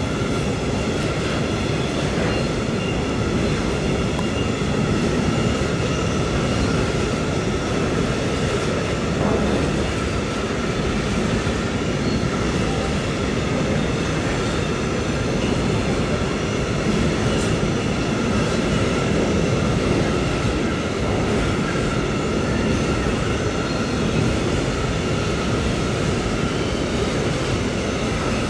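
Freight train of tank wagons rolling past: a steady rumble of wheels on rails, with steady high ringing tones held over it.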